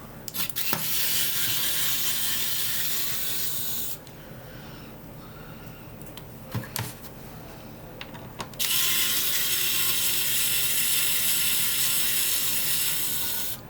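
Small electric screwdriver running in two steady spells of a few seconds each, backing screws out of a TRS-80 Model 100 portable computer, with a few light clicks in the pause between.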